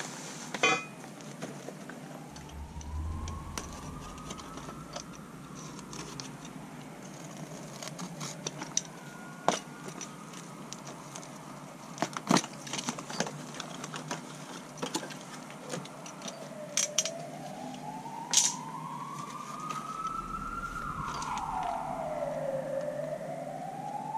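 Emergency vehicle siren wailing, sliding slowly up and down in pitch and growing louder near the end. Scattered clicks and knocks come from handling the unboxed parts.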